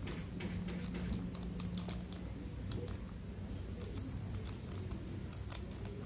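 Small irregular clicks of the plastic push buttons on a CJB 119 siren control panel as fingers press and handle them, with no siren tone sounding.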